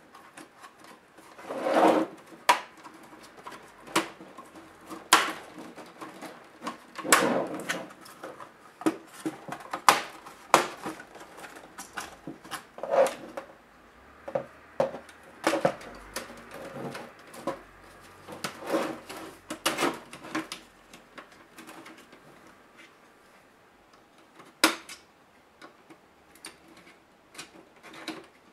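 Plastic case of an HP G71 laptop being pried apart and handled by hand: irregular sharp clicks and snaps of plastic with short scrapes between them.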